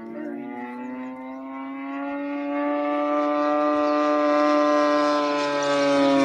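Radio-control model P-47 Thunderbolt's motor and propeller droning in a flyby, growing steadily louder as the plane approaches. Near the end the pitch starts to drop as it passes.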